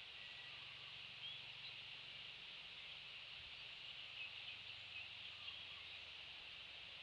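Faint outdoor ambience: a steady high hiss with a few faint, short bird chirps, one about a second in and several between four and five and a half seconds in.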